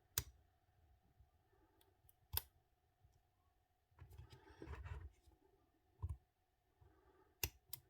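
Faint, sparse metallic clicks of a small hook pick working the pins of an ISEO lock cylinder under a homemade tension wrench, about five sharp clicks spread out, with softer scraping about four seconds in.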